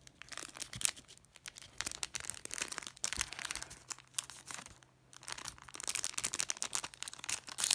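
Foil Pokémon booster pack wrapper crinkling and rustling in quick irregular crackles as it is opened and the cards are pulled out, with a brief lull a little before the middle.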